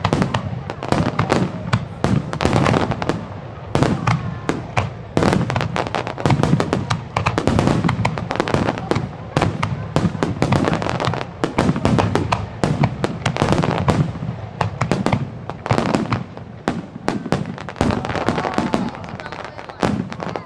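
Aerial firework shells bursting in a dense rapid-fire barrage, many sharp bangs a second overlapping with one another, thinning out near the end.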